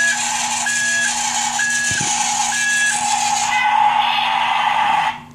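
Electronic sound effects from a battery-operated toy Cat bulldozer: a machine-engine noise with a short reversing beep repeating about once a second. The beeping stops about three seconds in, the engine noise swells, and then the sound cuts off suddenly about five seconds in.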